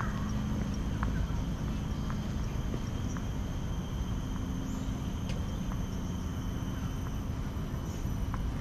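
Outdoor walking ambience: scattered footsteps on a concrete path over a steady low rumble, with a faint, steady high insect trill throughout.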